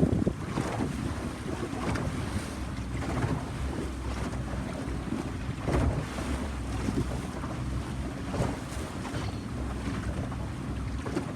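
A boat's engine running steadily, with wind buffeting the microphone and water rushing and splashing around the hull.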